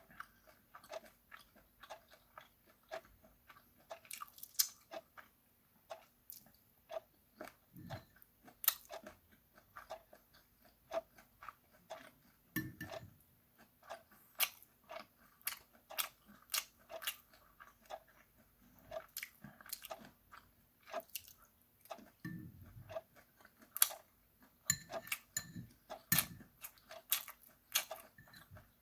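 Close-up eating sounds of charcoal-grilled chicken feet and rice being chewed: an irregular, continuous run of wet clicks, smacks and crunches, with a few low thumps along the way.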